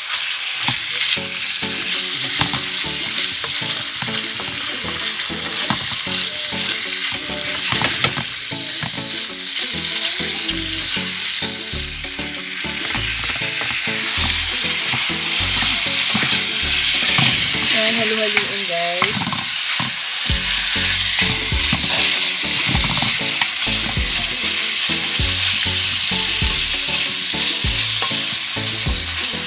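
Beef chunks and sliced onion sizzling in hot oil in a frying pan, stirred with wooden spatulas that scrape and tap against the pan.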